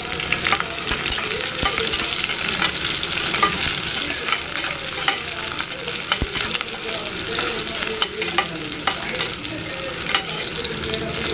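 Shallots and sliced garlic sizzling in hot oil in a pressure cooker while a metal spoon stirs them. The spoon scrapes and clicks irregularly against the pot.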